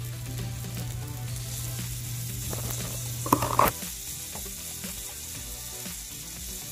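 Ground beef sizzling as it fries in olive oil in a nonstick pan, a steady hiss. There is a short, louder scrape a little over three seconds in.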